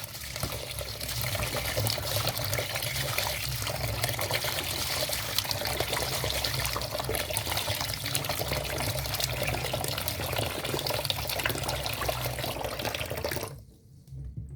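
Raw rice being washed in water for the second rinse: steady splashing and trickling water with small clicks, which stops abruptly near the end.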